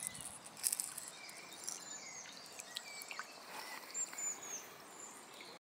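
Small birds chirping and calling over soft outdoor hiss, with a few brief splashing and handling noises in the first second.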